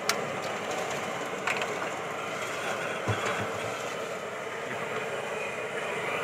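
Steady noisy background of a street-food griddle stall, with a few sharp clicks about a second and a half apart.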